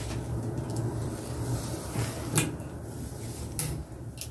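Handling noise as hands work through long hair: a few sharp clicks, about two and a half, three and a half and four seconds in, over a low steady hum.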